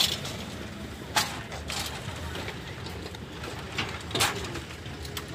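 Level crossing barrier arm rising, with a low steady background and several sharp clicks and knocks, the loudest near the start, about a second in and around four seconds in.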